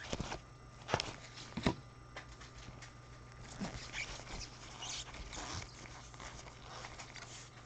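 Trading cards being handled and set down on a table: a scatter of light taps and soft slides at irregular intervals.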